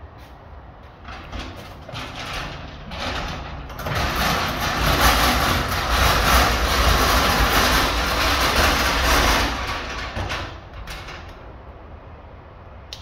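Garbage truck running and working close by: the engine rumble and mechanical noise build from about a second in, are loudest from about four to ten seconds in, then die back.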